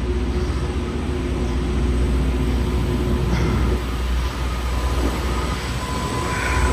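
Loram rail grinder train passing: a steady low diesel-engine drone with a held tone, mixed with the noise of its grinding stones working the rails.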